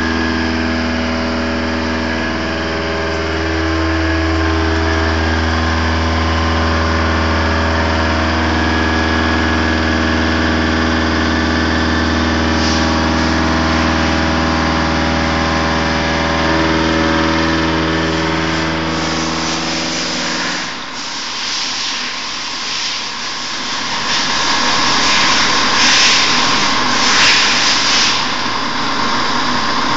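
Bragonzi T130 CNC boring mill contour-milling a hole in welded steel with a 50 mm milling cutter: a steady machine hum of several level tones. About two-thirds of the way in the low hum stops and a rougher, louder cutting noise with a steady whine takes over.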